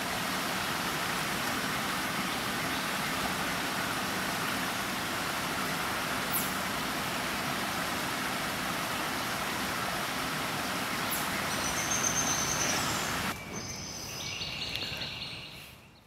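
Stream water splashing steadily over a small rock cascade. Near the end the rushing drops away and a small bird sings a short run of high, stepped notes.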